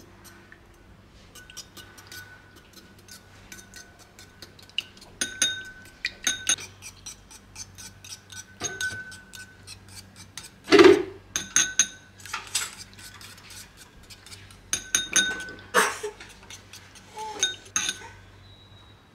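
Wire whisk beating two raw eggs in a metal bowl: fast clinking of the wires against the bowl, with the bowl ringing faintly at times. There are a few louder knocks and scrapes, the loudest about eleven seconds in.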